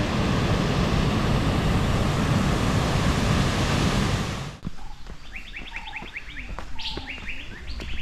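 Waterfall rushing as a loud, even wash of noise, which cuts off about four and a half seconds in. Birds then call in quick runs of short chirps.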